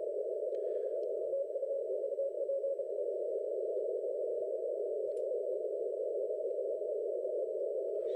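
Shortwave transceiver's CW receive audio on the 30-metre band through a narrow filter: a steady band of hiss, with faint Morse code tones from the pileup of calling stations coming through briefly about a second and a half in.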